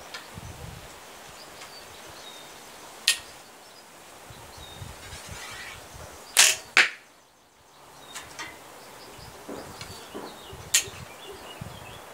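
A 28 lb bamboo horse bow shot once, about halfway through: the sharp snap of the string on release, then the carbon arrow hitting the target a split second later. Two single sharp clicks come, one about three seconds in and one near the end.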